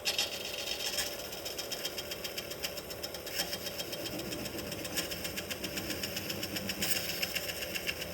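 Wood lathe running with a cutting tool on the spinning blank, giving a fast, even ticking, louder near the end.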